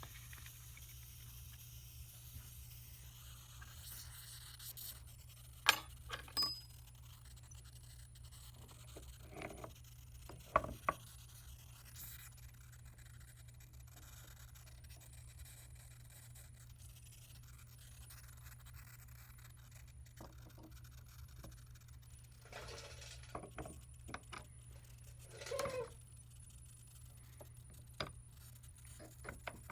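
Occasional sharp metal clicks and short scrapes from a steel wire mold and tools being handled on the workbench, over a steady low hum.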